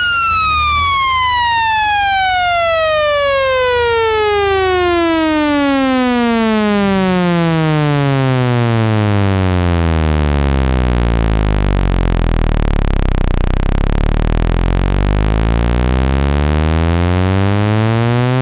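Speaker-cleaning tone, meant to shake dust out of a phone speaker when played at full volume. It is a loud, buzzy synthesized tone that sweeps steadily down in pitch and settles into a low hum about ten seconds in.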